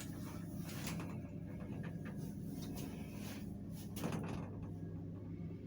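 Small passenger lift running with a steady electric hum, a few soft clicks and one louder knock about four seconds in.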